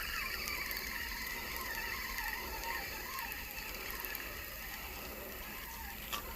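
Fishing reel being wound steadily as a feeder rig is retrieved after a bite, with a small click near the end.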